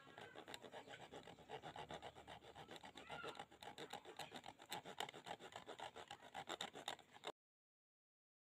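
Quick back-and-forth scraping strokes on a small wooden knife handle being shaped on the blade's tang. A steady rasping rub that stops abruptly near the end.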